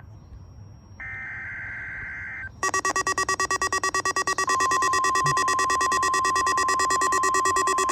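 An Emergency Alert System data burst, a harsh two-tone screech, about a second in, then from about two and a half seconds an Eton Solarlink weather radio's alert buzzing in fast pulses. About halfway through, the steady 1050 Hz NOAA Weather Radio warning tone joins it.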